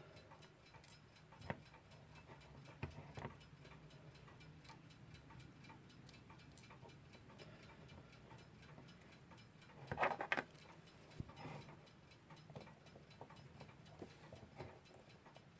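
Faint, steady ticking of a mechanical clock, with occasional small clicks and taps from a screw being fitted and tightened into the clock movement. There is a louder cluster of taps about ten seconds in.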